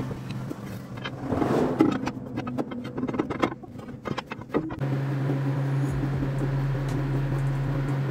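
Scattered knocks and clatter over passing vehicle noise, then, about five seconds in, a truck engine starts a steady idle, running to fill a repaired tyre with air.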